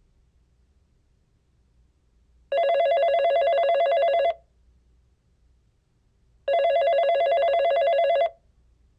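Telephone ringing: two long trilling rings, each a little under two seconds, starting about four seconds apart with quiet between them.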